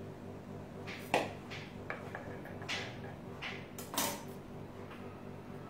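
A few brief knocks and clinks of cake-decorating utensils being handled on the table and the metal cake turntable. The loudest come about a second in and about four seconds in.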